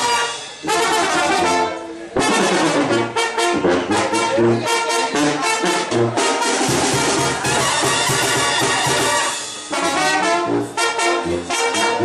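Mexican banda brass band playing live: trombones, trumpets and clarinet over a regular tuba and bass-drum beat, with short breaks between phrases about half a second in, about 2 s in and near the end.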